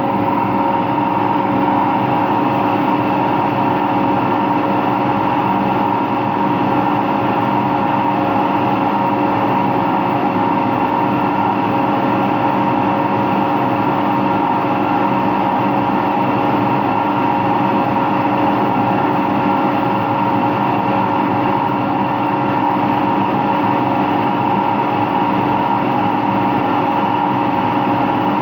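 Empty washing machine running steadily on its rinse and spin cycle: a steady whine over a rumble, the noise of worn bearings, which the owner takes to be both the motor bearing and the drum bearing.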